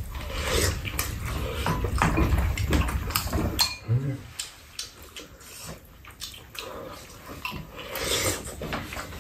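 Two people eating: wet slurping and chewing of mouthfuls, with spoons and chopsticks clicking against bowls.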